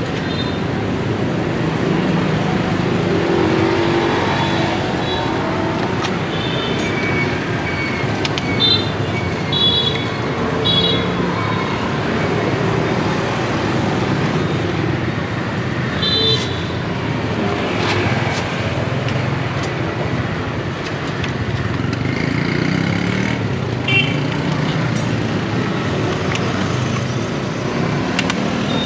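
Busy street traffic running steadily, with several short horn toots.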